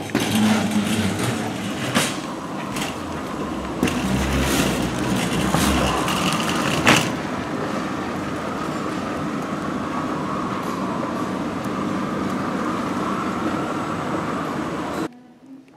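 Wire shopping trolley rattling as it is pushed, its wheels rolling over the store floor, with several sharp knocks in the first seven seconds and then a steadier rolling noise. The noise cuts off suddenly shortly before the end.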